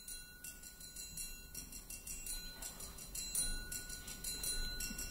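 Quiet intro music over the opening title: a light, high, evenly repeating tapping figure with a held high tone, slowly growing louder.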